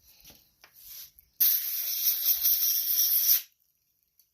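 Compressed-air blow gun hissing in one steady blast of about two seconds, blowing the dust out of a riding mower's engine air filter. A few faint clicks come just before it.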